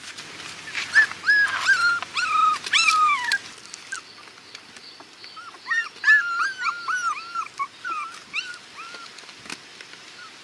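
Young puppies whimpering and crying in a string of short, high-pitched yelps. They come in two bouts, one starting about a second in and a longer one from about the middle.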